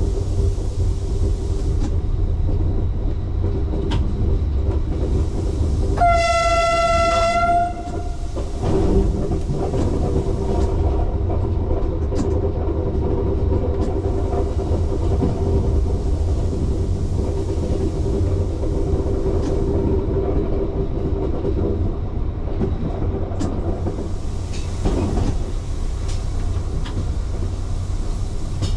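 Lint diesel railcar running with a steady low rumble, heard from the driver's cab. About six seconds in, its horn sounds one steady note for about a second and a half.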